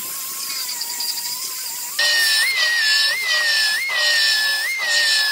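A pneumatic die grinder with a small sanding disc whines at a steady, slightly wavering pitch while grinding down weld seams. About two seconds in, a belt file sander takes over, louder and higher-pitched, its pitch lifting briefly about every 0.7 seconds as it sands the welded rocker seam.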